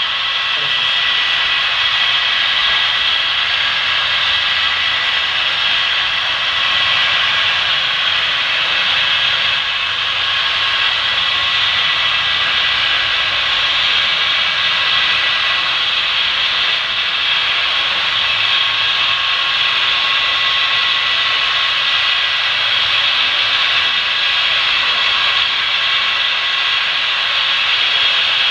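Steady whirring noise with a few thin, unchanging whine tones: the running sound of HO-scale model locomotives and cars rolling along the track.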